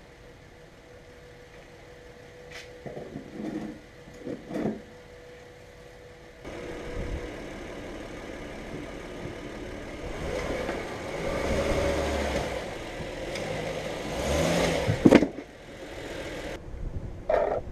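2013 Honda Pilot's V6 engine running, likely being warmed up before the oil change, after a few light clicks and knocks; the engine noise starts suddenly about six seconds in, swells in the middle, and a sharp loud knock comes near the end before the noise cuts off abruptly.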